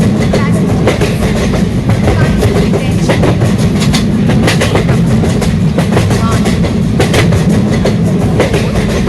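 Passenger train running on the rails: a steady low rumble with irregular sharp clicks of the wheels over rail joints.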